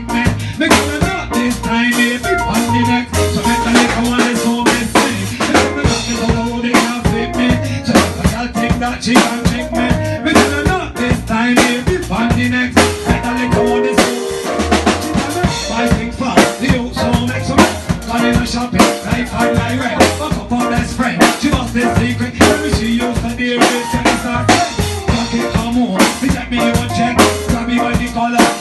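A live band playing a tune, with a drum kit keeping a steady beat over a bass guitar line.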